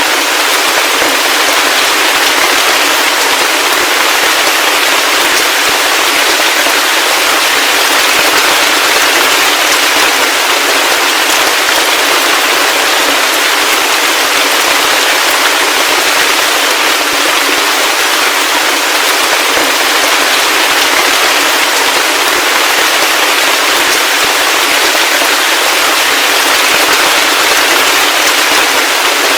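Heavy rain falling steadily: a dense, even hiss of drops with a fine crackle running through it and no low rumble.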